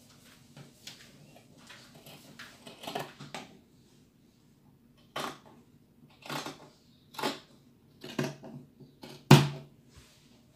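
Scissors cutting through cotton Ankara print fabric: a series of snips, light ones at first, then about five sharper cuts roughly a second apart, the last the loudest.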